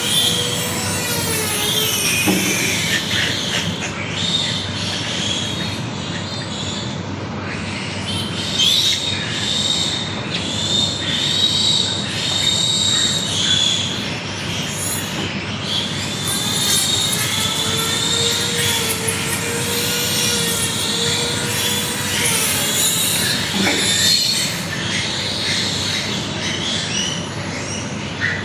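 Piglet squealing and screaming continuously in long, high-pitched cries while it is held for teeth clipping.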